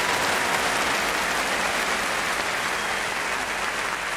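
Studio audience applauding after a joke, a dense crackle of many hands clapping that slowly dies down.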